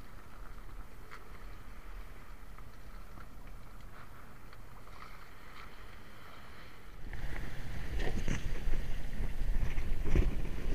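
Wind and sea noise on a small outrigger canoe while a fishing net is hauled in by hand, with a few faint ticks. About seven seconds in it cuts abruptly to louder, close handling noise with knocks and low thumps.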